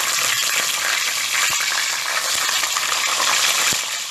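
Whole galunggong (round scad) frying in hot oil in a metal wok: a steady sizzle. Two light taps come through it, about a second and a half in and near the end.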